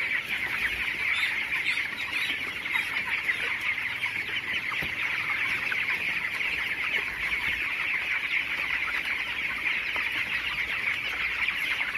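A large flock of 22-day-old broiler chickens peeping and chirping continuously, many birds calling at once in a dense, steady chatter.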